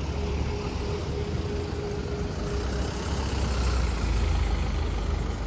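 Street traffic, with a delivery truck's engine running close by as a steady low rumble.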